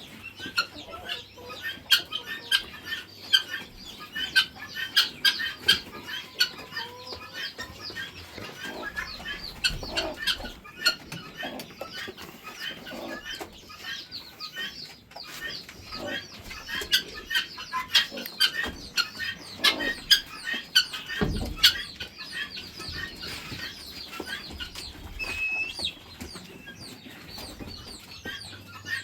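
A flock of poultry calling all at once: a dense, continuous chatter of short chirps and clucks, with scattered sharp knocks and bits of wing flapping.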